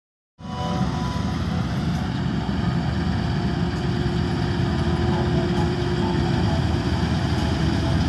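NEW HIND 999 combine harvester running, a steady dense machinery drone with a faint constant hum. It cuts in abruptly just under half a second in.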